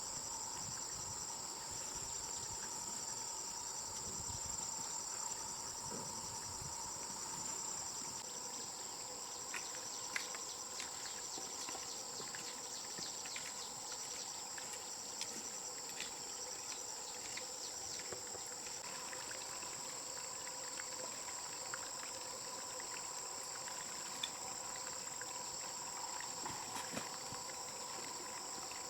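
Steady high-pitched chorus of insects such as crickets, with scattered light clicks and taps.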